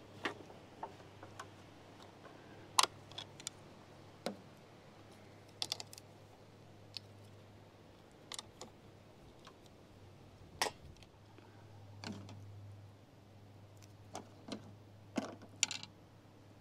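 Scattered sharp clicks and taps of a hand wrench and metal fittings being handled as bolts at the windshield header are worked with a 10 mm wrench, coming at irregular intervals, some in quick pairs or clusters.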